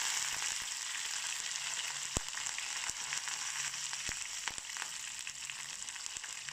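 Hot oil sizzling steadily in a small wok around freshly added curry leaves, green chillies, cashews and dals during a tempering, with a few sharp pops.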